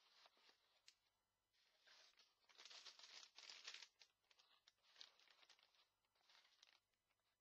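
Faint crinkling and rustling of a model kit's plastic sprue bag and paper instruction sheets being handled, in a few short bouts, the busiest stretch a little before the middle.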